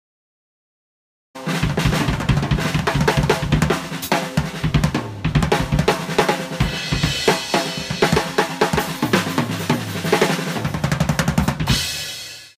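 Drum kit played as a fast, busy solo: snare, bass drum, toms and cymbals, starting after about a second and a half of silence. It ends near the end on a cymbal wash that fades out.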